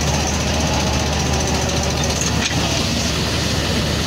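Swaraj 8200 combine harvester running steadily at close range, its engine giving a constant low hum under an even mechanical din.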